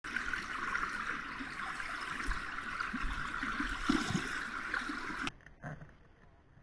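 Fast-flowing river rapids rushing steadily, cutting off suddenly about five seconds in.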